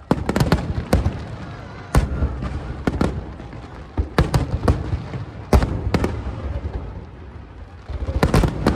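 Aerial fireworks bursting: a run of sharp bangs and crackles over a low rumble, coming in quick clusters about a second in, around four to five seconds in, and again near the end.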